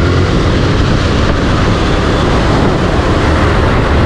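Suzuki Gixxer 155 single-cylinder motorcycle riding at speed, its engine running steadily under a loud rush of wind on the helmet-mounted microphone.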